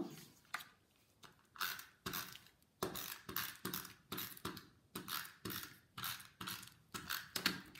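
Stampin' Up! Snail adhesive tape runner laying short strips of adhesive onto the back of a piece of cardstock: a quick run of short ratcheting strokes, about two a second, starting about a second and a half in.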